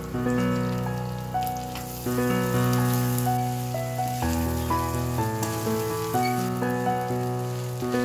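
Background instrumental music of struck, fading notes that change every second or so. Underneath it is a faint sizzle of rice frying in a wok.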